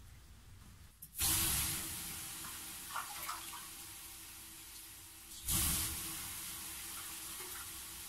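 Water splashed onto the heated stones of a temazcal sweat lodge, hissing into steam twice. A sudden loud hiss comes about a second in and fades over a few seconds, and a second one comes a little past halfway.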